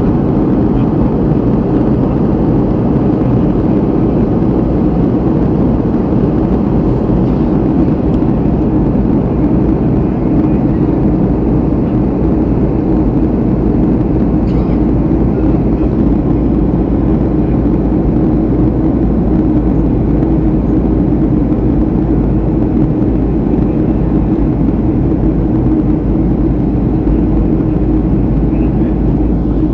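Steady, unbroken low engine drone of a moving vehicle.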